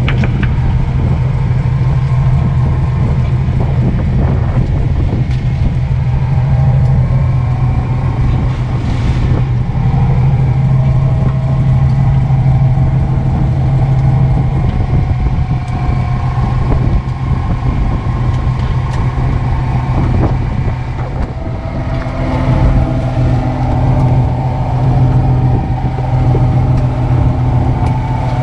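Fishing boat's engine running steadily with a low drone, with a higher whine above it that wavers in pitch and comes and goes.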